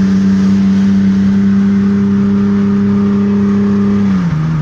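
Car engine held flat out with the throttle floored, a steady unchanging note at constant high revs; about four seconds in the revs fall and settle at a lower steady note. The engine is being run to destruction and dies seconds later.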